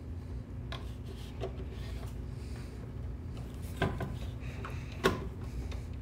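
Screws being turned in by hand with a Phillips screwdriver to fasten the PC board panel onto a garage door opener: light rubbing and scraping, with a sharp click about four seconds in and another about five seconds in.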